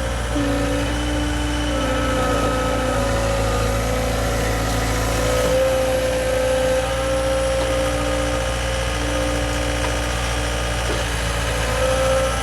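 Skid steer loader's engine running steadily, with a held whine over it that shifts in pitch every few seconds.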